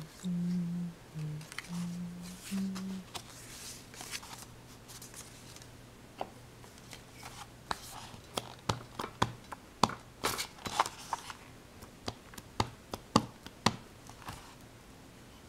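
Irregular sharp clicks and taps of objects being handled in a small room, coming thickest in the second half, over a steady low hum. A few short low voice-like tones sound at the start.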